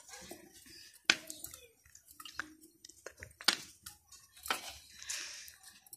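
Rolling out a paratha by hand: a wooden rolling pin working the dough on a wooden board, with soft handling noise and a few scattered sharp clicks and knocks.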